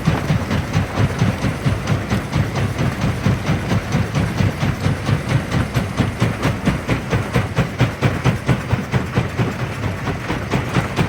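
Jaw crusher running and crushing rock, with a fast, even rhythm of about four to five strokes a second over a steady heavy clatter.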